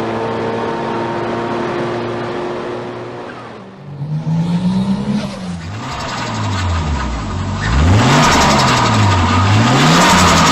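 Turbocharged car engine running steadily, then after a cut revved up and down several times. On each throttle lift comes a rapid fluttering chatter from the turbo, the sound of compressor surge (turbo flutter).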